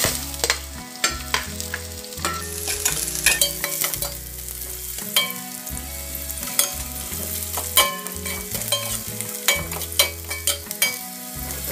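Sliced onion frying and sizzling in hot oil with ginger and garlic in a metal pot. A metal ladle stirs it, scraping and clinking against the pot many times.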